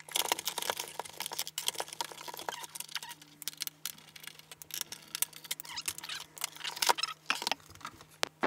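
Plastic rear casing of a Philips 170S LCD monitor being pried loose: a dense, irregular run of clicks, creaks and snaps as its plastic clips let go.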